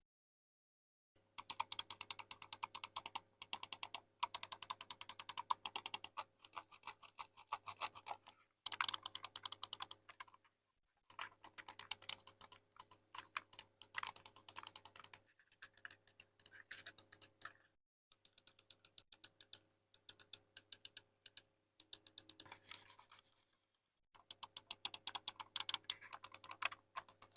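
Ajazz AJ099 gaming mouse buttons being clicked in rapid runs of sharp clicks, with short pauses between runs.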